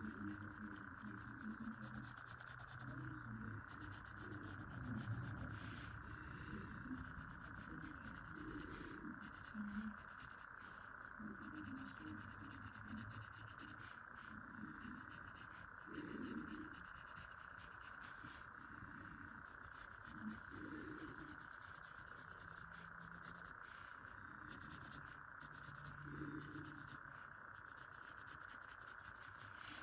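Graphite pencil shading on paper: faint, irregular scratchy rubbing strokes, over a steady hiss.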